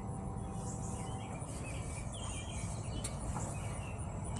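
Outdoor background of birds chirping over a steady low hum, with a faint click about three seconds in.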